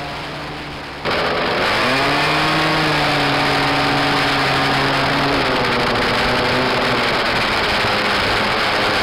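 About a second of wind and road rush, then a small two-stroke scooter engine running under way: its pitch rises near two seconds in as it accelerates, holds steady, and drops about halfway through as it eases off.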